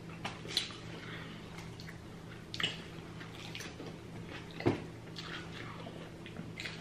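Close-miked eating sounds: wet chewing and smacking on rotisserie chicken dipped in cheese sauce, with small crackles and three sharp clicks about two seconds apart, over a steady low hum.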